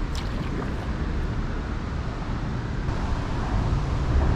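Wind buffeting the microphone as a steady low rumble while a kayak glides along the lock wall, with a few light splashes of water from the paddle right at the start.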